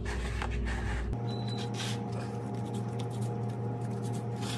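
Hands pressing and kneading soft risen dough in a plastic bowl, with a few soft taps. About a second in, a steady hum of several fixed tones comes in and holds.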